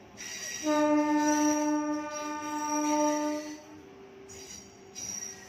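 Air horn of an Indian Railways WAG-12 electric freight locomotive: one long steady blast, starting about a second in and lasting nearly three seconds, over the rolling noise of the locomotive passing.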